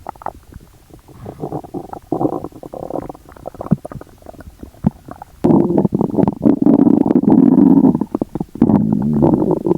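Upset stomach gurgling and rumbling after eating sugar-free gummies, heard close up. It starts as scattered clicking gurgles and short growls, then turns to a loud, drawn-out rumbling growl about halfway through, breaks off briefly, and growls again near the end.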